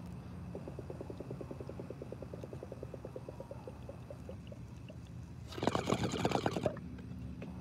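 Water gurgling in a small glass bubbler pipe as smoke is drawn through it: a quick, even train of small bubbling pops, then about five and a half seconds in a louder, rougher burst lasting about a second.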